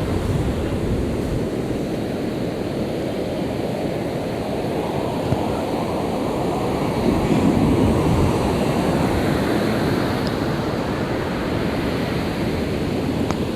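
Sea surf washing on the shore as a steady rush, swelling a little about seven seconds in.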